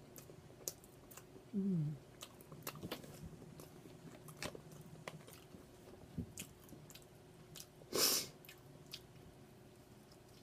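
Close-up chewing and biting of crispy fried chicken, with many small crunching clicks. A short low vocal sound falls in pitch about a second and a half in, and a short loud hiss of breath-like noise comes about eight seconds in.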